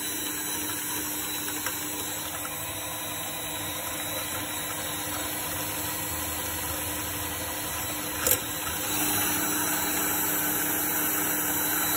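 A 300-watt electric mixer running steadily at low speed, whisking egg whites in a bowl as they begin to foam. There is one sharp knock about eight seconds in, and the mixer gets a little louder just after it.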